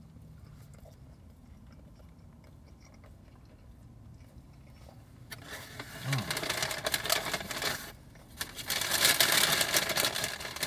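A mouthful of fish sandwich being chewed quietly. Then, from about five seconds in, loud crinkling and rustling of paper fast-food packaging in two stretches with a short break between them.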